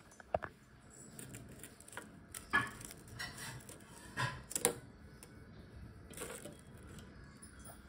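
A handful of light, irregular taps and clicks as a hand handles crisp puri shells on a steel plate.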